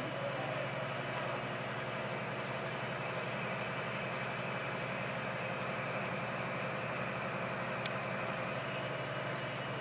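Mobile crane's diesel engine running at a steady speed while the crane holds a power transformer on its slings.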